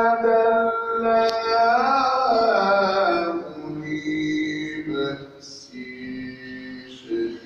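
A man's voice reciting the Quran in melodic tajweed style. He holds one long note for about three seconds, ornamenting it with a waver, then drops to softer, lower phrases.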